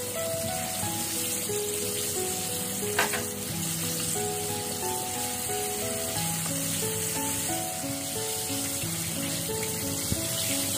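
Breaded chicken thighs deep-frying in hot oil on their second fry: a steady bubbling sizzle, with one short sharp pop about three seconds in. Soft background music with a simple melody plays over it.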